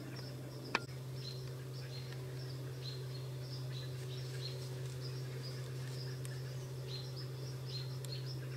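Field ambience at dusk: a steady low hum under a chorus of short, high chirps repeating throughout, with one sharp click just under a second in.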